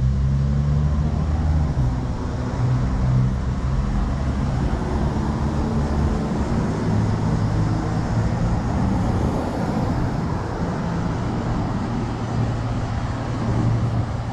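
City street traffic: car engines running and vehicles passing at a steady level.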